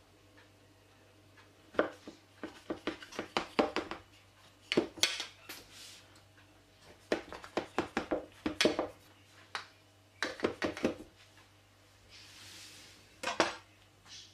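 Kitchen knife cutting through layers of raw, starch-dusted baklava dough in a round metal tray: runs of short, crisp, scratchy cutting strokes, about five runs of several strokes each.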